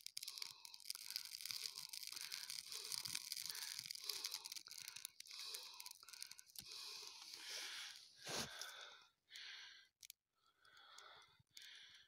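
Thin dry twigs crackling faintly as a small campfire catches from a lighter flame, with a single thump about eight seconds in.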